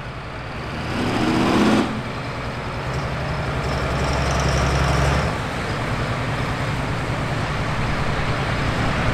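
Diesel drag truck engine running, with a short rising rev about a second in that cuts off sharply, then a steady deep rumble.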